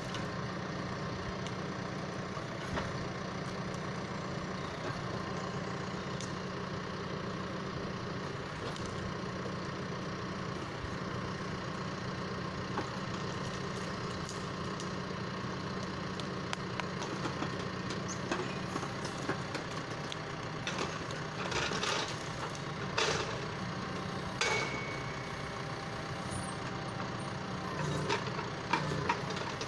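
John Deere 6115M tractor's diesel engine running steadily while it powers a timber trailer's hydraulic crane. In the second half the grapple handles logs with several sharp wooden knocks, and there is a brief high squeal about two-thirds of the way through.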